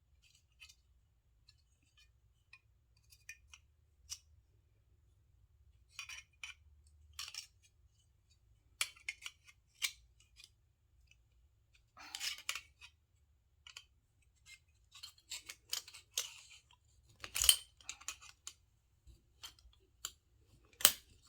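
Metal doorknob parts clicking, clinking and scraping as the knob is worked apart by hand: scattered irregular clicks and short scrapes, the loudest a sharp knock about three-quarters of the way through.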